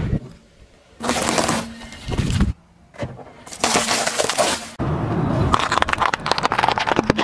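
A car tyre crushing hard candy and then vegetables on asphalt, heard as short bursts of cracking and crunching: Chupa Chups lollipops shattering under the tread, then carrots snapping and crunching near the end.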